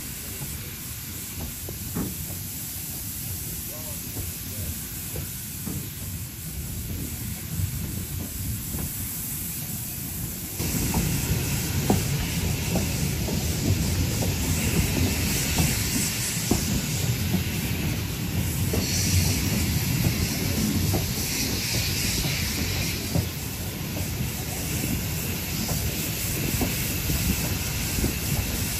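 Heritage railway train in motion, heard from an open carriage window: a steady low rumble of the running gear under a hiss. It gets louder about a third of the way in, with scattered short clicks from then on.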